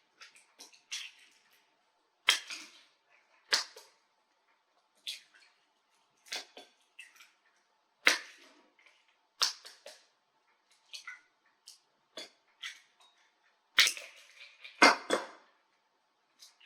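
Eggs being cracked on the edge of a bowl: an uneven series of sharp cracks and clicks, about ten of them, with small rustles of shell between them.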